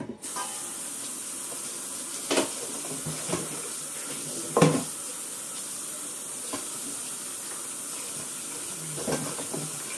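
Kitchen tap turned on and running steadily into the sink while vegetables are rinsed under it, with a few knocks against the sink, the loudest a little before halfway.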